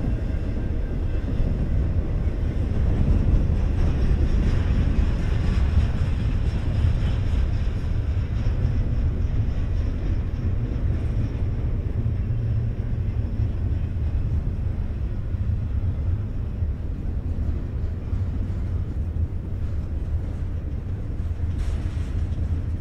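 Container cars of a BNSF intermodal freight train rolling past: a steady low rumble of steel wheels on the rails.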